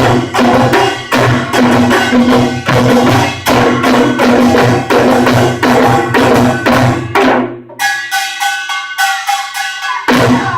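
Korean pungmul percussion band playing a fast, driving rhythm of drums and gongs. About eight seconds in the drums drop out, leaving only ringing metal gong strikes for a couple of seconds, then the full band comes back in.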